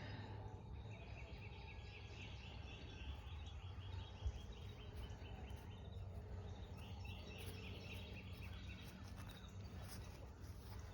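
Faint farmyard ambience: a bird calling in long runs of rapid repeated chirps, over a steady low rumble. There is one soft knock about four seconds in.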